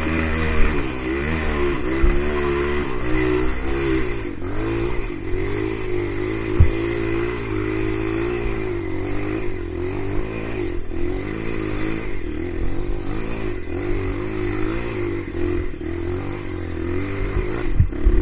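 Small four-stroke trail motorcycle engine revving hard, its pitch rising and falling again and again as the rider works the throttle on a steep dirt hill climb. There are a few sharp knocks, the clearest about six and a half seconds in.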